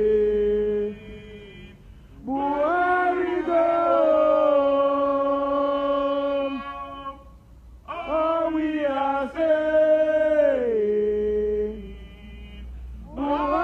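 Protesters singing a chant together: long held sung phrases that slide down in pitch at their ends, a few seconds each, with short pauses between them.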